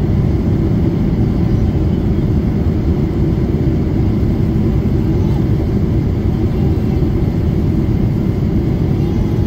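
Steady low cabin noise of a Boeing 777 in flight, jet engines and airflow heard from inside the passenger cabin during the climb after departure.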